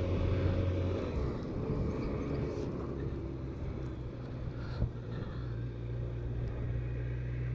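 BMW K1200RS motorcycle's inline-four engine running on the move. About a second in the engine note drops as the revs fall, then it holds steady at a lower pitch.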